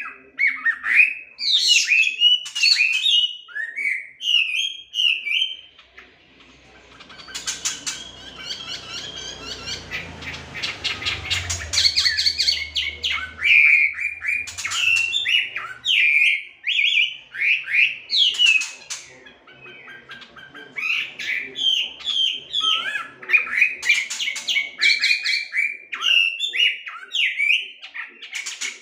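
Chinese hwamei (melodious laughingthrush) singing loud, rapid, varied phrases of sliding whistles and chatter. There is a short pause about six seconds in, and a low rumble underlies the song for several seconds around the middle.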